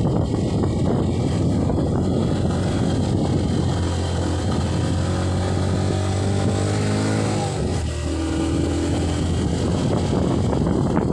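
A vehicle engine running close by. Its pitch climbs for a few seconds around the middle as it speeds up, then drops back and holds steady.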